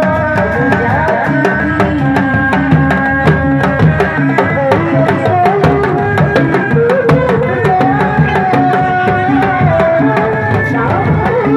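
Dog-dog drums of a Sundanese reak troupe beating a fast, steady, interlocking rhythm, with a sustained, wavering melody line held above the drumming.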